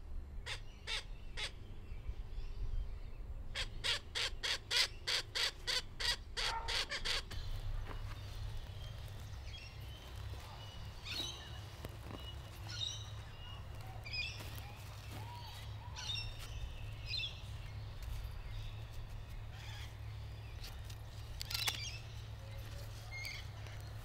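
Birds calling: a run of short, harsh, caw-like calls that quickens to about four a second, then scattered high chirps, over a steady low rumble.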